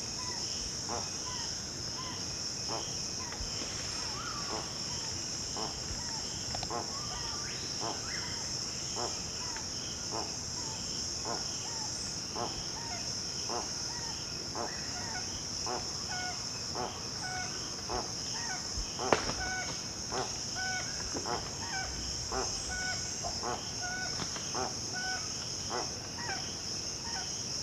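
Jacumirim guan giving a long series of short grunting call notes, about one or two a second, over a steady high-pitched insect drone. A single sharp knock about nineteen seconds in.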